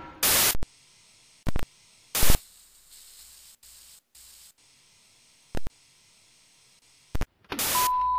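Old-TV static: about six short bursts of hiss with faint hiss between them. Near the end a steady 1 kHz test tone sounds under a longer stretch of static, as with a colour-bar test signal.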